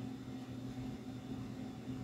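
Room tone: a steady low hum with a faint even hiss, and no speech.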